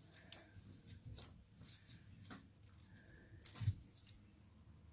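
Quiet handling of paper and vellum on a card: light rustles and small clicks as a vellum sheet is slid in and pressed into place, with a soft thump about three and a half seconds in.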